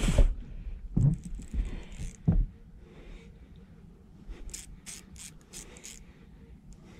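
Handling noise in a small fishing boat: three dull knocks in the first two and a half seconds, then a run of light clicks and rattles of fishing tackle.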